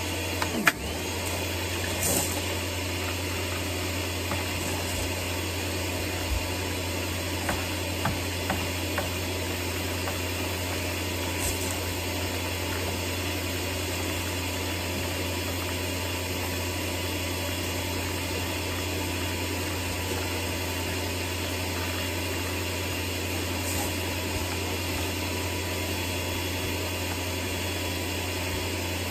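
Kärcher K3 Power Control electric pressure washer running steadily with a low hum, spraying water through its wash brush attachment. The motor and pump start up just under a second in.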